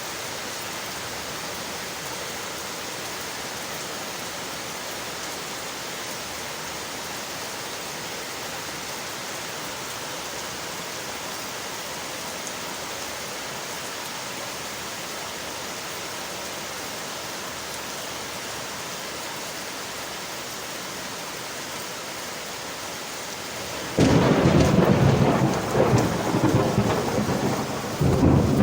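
Steady rain hiss, then near the end a sudden loud thunderclap that goes on rumbling and rising and falling.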